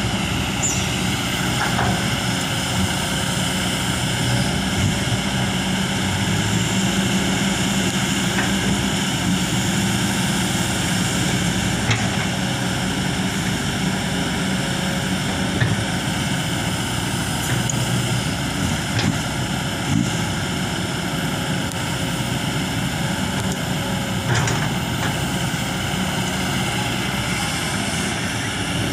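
Kobelco SK200-8 excavator's diesel engine and hydraulics running steadily while it digs, with a dump truck's engine running alongside. There are a few faint knocks.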